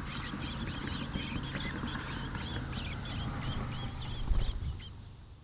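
American robin nestlings begging as a parent stands over the nest: a rapid, steady series of high chirps, about four a second, over a low hum. There is a low thump about four seconds in, and the chirps fade out near the end.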